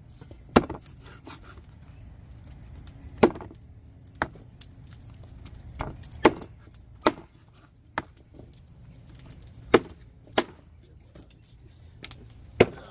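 Chicken back being chopped into small pieces with a blade: about ten sharp chops at uneven intervals.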